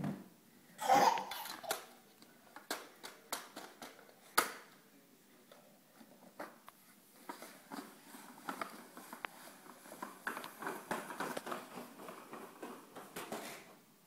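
Plastic clatter of a toddler's ride-on toys: scattered sharp knocks and a short loud burst about a second in, then a run of rapid rattling from about seven seconds on as a plastic John Deere ride-on toy tractor is scooted across carpet.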